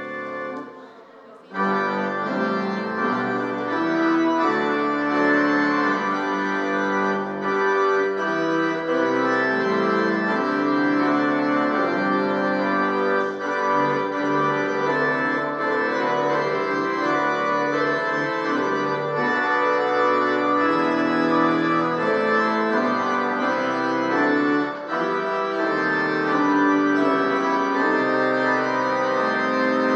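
Church organ playing the postlude: full sustained chords over a moving bass line. It drops almost out for a moment about a second in, then comes back in full, with a brief dip again near 25 seconds.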